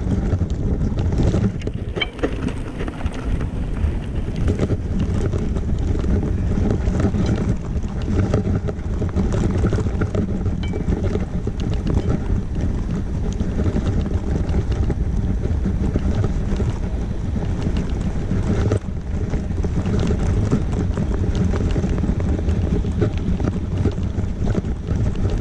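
Wind buffeting the microphone over the steady rumble of an electric wheelchair-bike attachment rolling over a rough grass and dirt track, with frequent small rattles and knocks from the ground.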